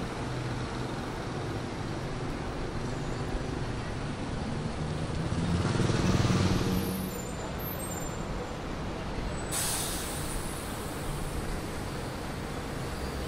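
City street traffic with a heavy vehicle passing, loudest about six seconds in. A sudden hiss starts about nine and a half seconds in and carries on.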